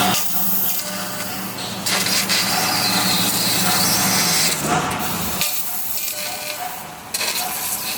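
Fiber laser cutting thick carbon steel plate: a steady, dense hiss of high-pressure assist gas and spraying sparks, changing abruptly a few times.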